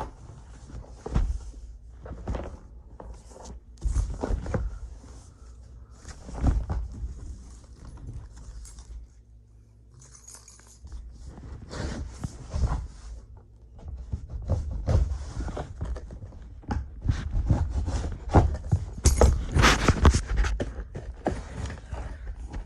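A key being used in place of a knife to slit the packing tape on a cardboard shipping box, with irregular scraping, tearing and knocks as the box is handled and pried open; the handling is busiest near the end.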